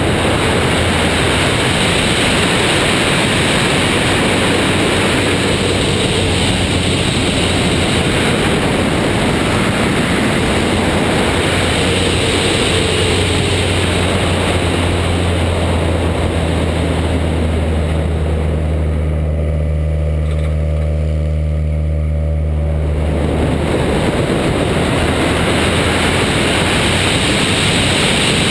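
Citabria 7ECA's four-cylinder engine and propeller running steadily in flight, under heavy wind rush on the wing-mounted camera. About two-thirds of the way through, the wind rush drops away for a few seconds and the engine hum stands out more clearly before the rush comes back.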